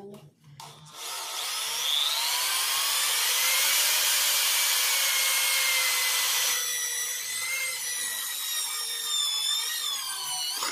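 Foster FK-5513 Pro corded drill, in plain drilling mode with a wood bit, boring a hole into a wooden plank. The motor whine starts about a second in and rises in pitch, with loud cutting noise from the bit. After about six and a half seconds the cutting noise eases while the motor keeps whining, its pitch wavering and rising near the end as the bit goes through.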